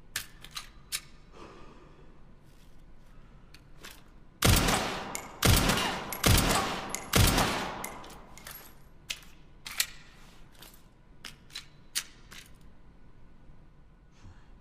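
SIG-Sauer P320 pistol firing four shots about a second apart, each with a ringing echo tail. Scattered light clicks come before and after the shots.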